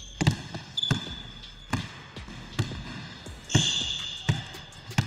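Basketball dribbled on a hardwood gym floor, a bounce every second or so, with sneakers squeaking sharply on the court about a second in and again a little after midway.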